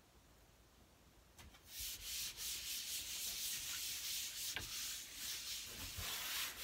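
A hand rubbing across a paper suction-cup poster, smoothing it flat against a wood-grain door. The rubbing hiss starts about a second and a half in and carries on, with a faint tap or two.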